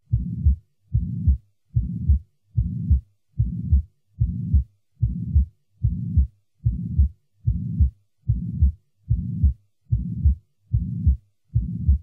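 Recorded heart sounds played for an auscultation quiz, steady at about 75 beats a minute. Each beat has a murmur that fills the interval between its two heart sounds.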